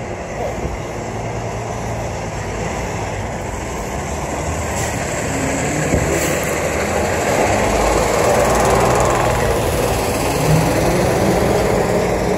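Downtown street traffic, a steady rumble that builds gradually and is loudest in the second half, as a heavy vehicle passes close by.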